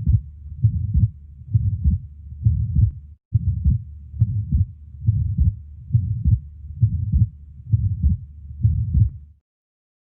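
Heart sounds heard through a stethoscope, beating regularly at about 75 beats a minute, with sound continuing in the gaps between beats, as in a heart murmur. There is a brief dropout a little over three seconds in, and the sound stops about nine seconds in.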